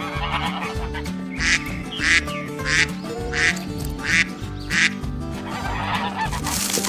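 Background music with six short waterfowl quacking calls, evenly spaced about two-thirds of a second apart, starting a little over a second in.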